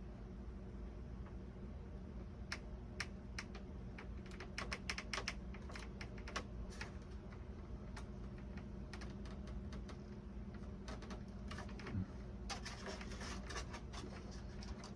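Irregular light clicks and taps from small hardware and tools being handled while fitting and tightening the model's pull-pull rudder cable, coming thicker near the end, over a steady low hum.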